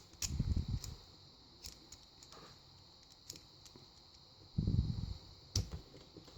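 Hand tools being rummaged through and handled on a workbench: scattered sharp metallic clicks, with two stretches of low bumping handling noise, near the start and near the end.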